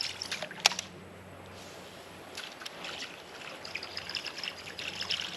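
Water trickling and lapping, with light flickering ticks, and one sharp click about two-thirds of a second in.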